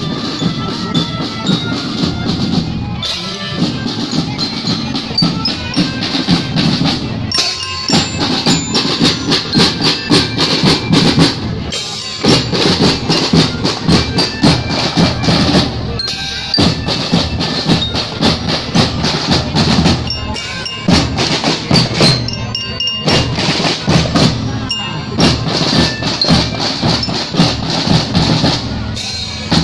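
School drum band playing a march: snare drums beating steadily with cymbal crashes, while melodicas and a glockenspiel carry the tune. The playing breaks off briefly every few seconds between phrases.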